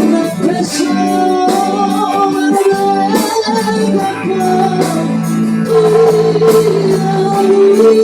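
A song playing: a held, wavering melody line over plucked-string accompaniment.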